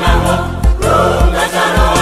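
Music: a Malagasy church choir singing a song of praise in several voices over a backing track with a steady bass beat, about two beats a second.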